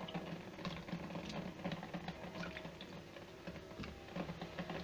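Wet cardoon pieces being taken from a bowl of water and dropped into a cooking pot: an irregular patter of small wet knocks and drips, with a steady low hum underneath.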